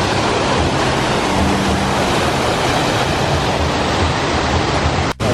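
Fountain jets rushing and splashing into their pools, a loud, steady hiss of falling water, broken by a momentary gap near the end.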